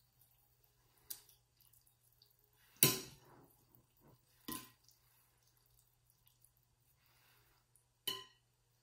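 A metal spoon clinking against a glass mixing bowl while scooping out a wet filling, four clinks with the loudest about three seconds in; the last one, near the end, rings briefly.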